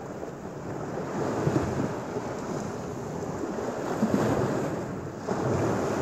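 Small Lake Michigan waves washing onto a sandy beach and breaking against a steel sheet-pile wall, swelling louder a few times as waves come in. Wind buffets the microphone.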